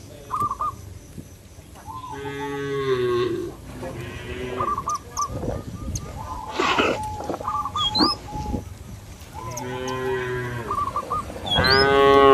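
Cattle mooing: several long, deep lows from the herd, about four calls, the loudest near the end.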